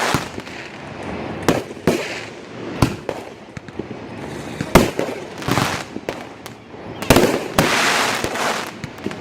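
Aerial fireworks bursting in a rapid barrage, a dozen or so sharp booms with crackling between them, the longest crackle after a big bang about seven seconds in.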